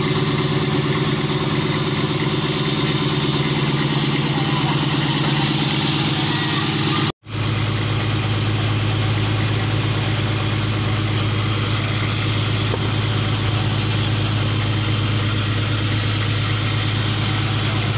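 Fishing boat's engine running steadily with a low, even hum. About seven seconds in the sound cuts out for an instant, and when it returns the hum is deeper and stronger.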